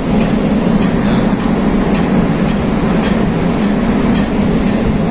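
Steady low drone of a cargo ship's engine and machinery under way, with wind buffeting the microphone.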